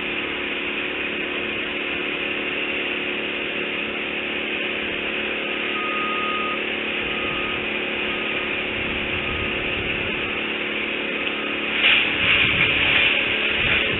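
A motor runs steadily in the distance with a constant hum. In the middle a short high tone sounds once and then repeats four more times briefly, and a louder scratchy noise comes in near the end.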